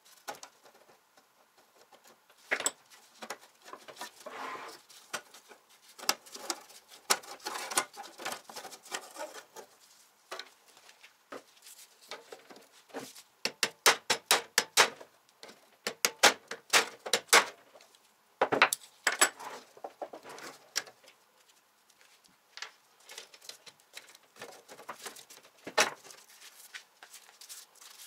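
Hammer tapping on the metal parts of an old electric shashlik maker, in quick runs of about five sharp strikes a second, with scraping and clatter of tools on the sheet metal between the runs.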